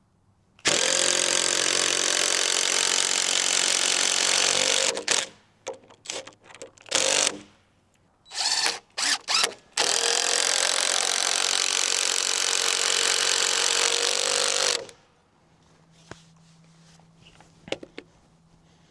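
A handheld power tool working lumber for floor joists: a run of about four seconds, several short bursts, then a second run of about five seconds before it stops.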